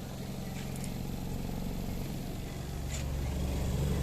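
Spin dryer of an LG semi-automatic washing machine running with clothes inside: a steady low hum that grows louder about two and a half seconds in, with a couple of faint clicks. The spinner turns centred and makes no abnormal noise after its repair.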